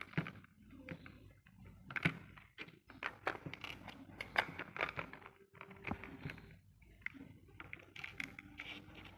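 Irregular small clicks, taps and knocks of parts and tools being handled while assembling a robot car chassis.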